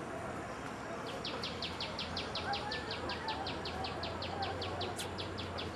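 A small animal's call: a rapid, even series of short, high chirps, about six a second, starting about a second in and lasting some four seconds.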